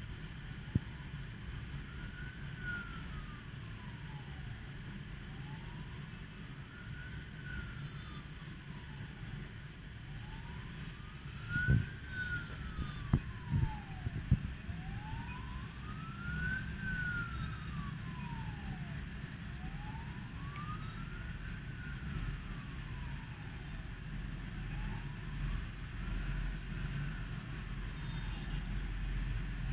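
Emergency vehicle siren wailing in slow rises and falls, about one cycle every five seconds, over a steady rumble of street traffic. A few loud knocks come about halfway through.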